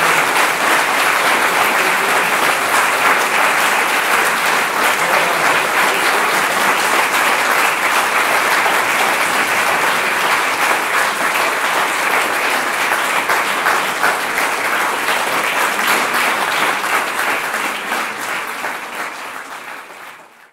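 Audience applauding steadily, a dense crowd of clapping hands, fading out near the end.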